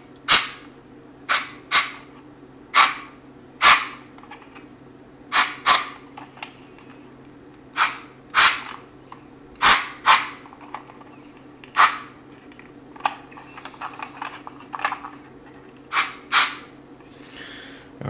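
A can of compressed air being sprayed in about fifteen short, sharp hissing blasts at irregular intervals, shot through the vents of a smoke detector head to clear smoke-test aerosol out of its sensing chamber so it will not trigger again.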